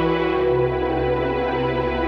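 Slow ambient background music of sustained, held synthesizer-like notes; the bass note shifts lower about half a second in.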